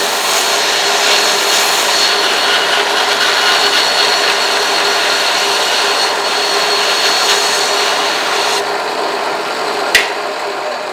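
A small belt sander driven by a drill press runs with a fine 800–1000 grit belt while a steel nicker blade is held against it for the final polish. It makes a steady abrasive hiss with a high whine. Near the end the hiss drops away and the sound fades, with a sharp click shortly after.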